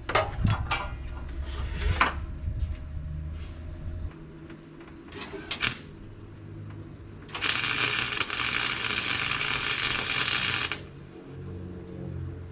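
Clanks and knocks of metal work, then a Harbor Freight welder's arc crackling steadily for about three and a half seconds as a weld bead is laid on the radiator bracket, starting and stopping abruptly.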